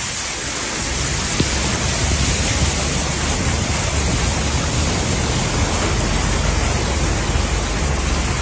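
Torrential rain and rushing floodwater: a steady, dense hiss with a low rumble beneath it. A single sharp click sounds about a second and a half in.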